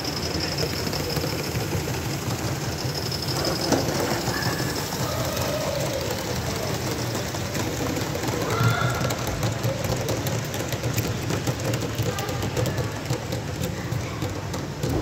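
Live steam model of a German class 52 locomotive running along its track with a train of freight wagons: a steady rumble of wheels on the rails with a hiss. Quick clicks from the wheels and wagons come in from about two-thirds of the way through.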